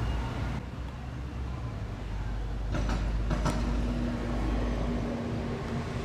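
Low steady hum from an LG system air conditioner's outdoor unit. A few sharp clicks come about three seconds in, and a steady higher hum tone joins just after.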